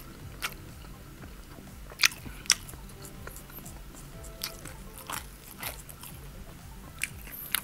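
Close-miked eating sounds: chewing with scattered sharp mouth clicks and small crunches as spicy stir-fried instant noodles are eaten by hand, the two loudest about two and two and a half seconds in.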